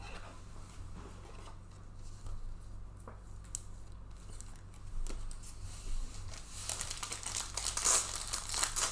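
Trading-card packaging being handled and opened: scattered light clicks and rustles, then a couple of seconds of plastic wrapper crinkling and tearing near the end, over a faint steady low hum.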